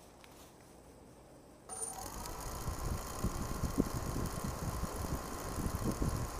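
Quadcopter motors and propellers spinning up suddenly about two seconds in, the whine rising briefly and then holding at a steady idle, with prop wash buffeting the onboard camera's microphone.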